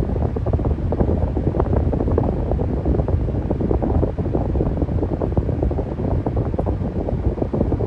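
Electric fan running steadily: a continuous low airy rush with a faint fluttering texture.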